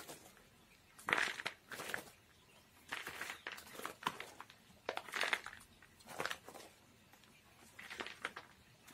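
Bark-based orchid potting medium handled and dropped by the handful into a pot around a Cymbidium's root ball, giving irregular rustling crunches about once a second as the pot is filled.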